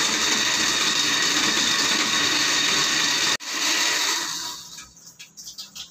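Electric countertop blender running at full speed, grinding a wet spice paste of tomato, shallots, garlic, candlenuts and chilies with water. The blender cuts out for an instant about three and a half seconds in, starts again, then winds down and stops about a second later.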